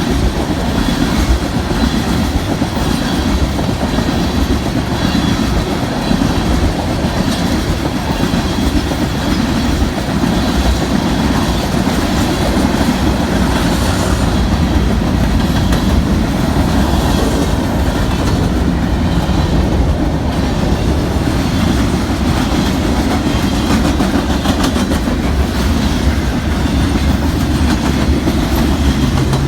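Union Pacific mixed freight train's cars rolling past at speed: a steady, loud rumble and clatter of wheels on rail that holds unbroken throughout, with no horn.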